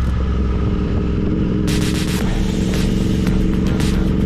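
Royal Enfield Interceptor 650's parallel-twin engine running steadily while riding a dirt road. From about two seconds in, irregular bursts of clatter and noise come and go over the engine.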